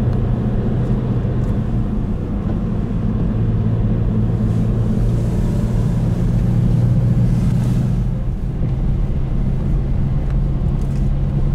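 Steady engine and tyre noise heard inside the cabin of a car driving along a road: a continuous low hum.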